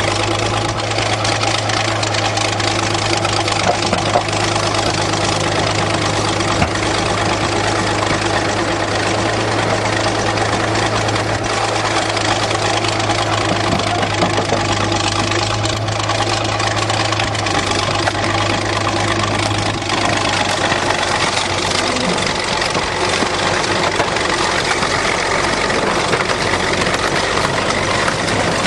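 Engine idling steadily with a constant low hum that fades out about two-thirds of the way through.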